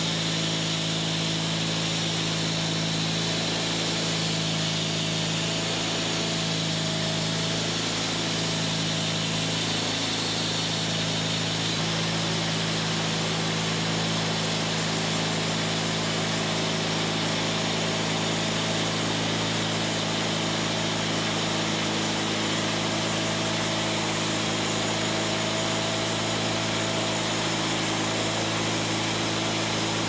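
Wood-Mizer portable band sawmill at work: its engine runs steadily while the band blade saws along a log, a constant mechanical noise throughout.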